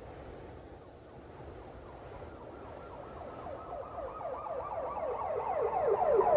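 Police car siren in a fast yelp, a rapid run of short falling sweeps about seven a second, coming in about two seconds in and growing steadily louder over a low rumble.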